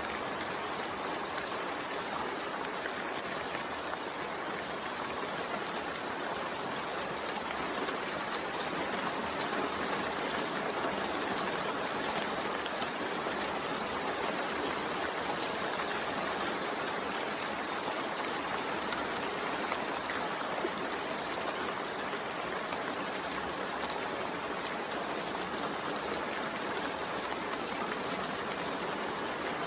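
Steady rain falling, an even continuous hiss with faint scattered drop ticks.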